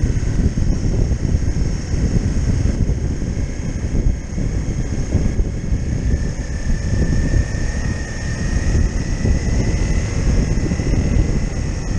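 Single-cylinder engine of a Honda CRF250L trail motorcycle running while riding along, with wind rushing over the microphone throughout. A faint whine rises slightly in pitch about halfway through.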